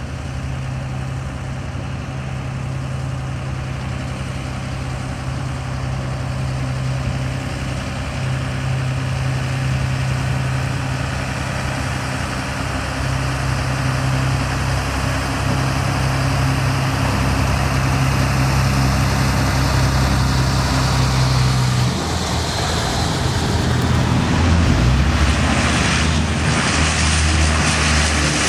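Four Allison T56 turboprop engines of a Lockheed P-3C Orion droning with a steady low propeller hum, growing louder as the aircraft comes in to land. About two-thirds through, the hum shifts and the sound turns louder and brighter as the plane rolls close by on the runway and power is added for the touch-and-go.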